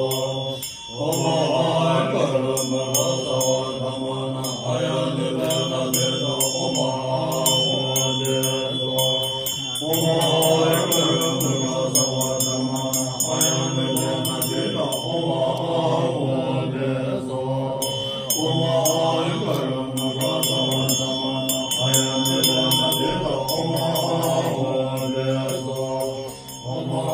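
Tibetan Buddhist ritual chanting in a deep, steady voice, breaking off briefly for breath every several seconds, with a hand bell ringing over it.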